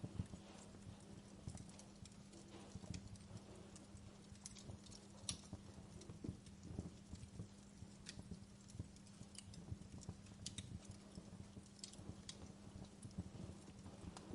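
Wood fire crackling softly: irregular scattered pops and snaps over a low rumble, with a steady low hum underneath.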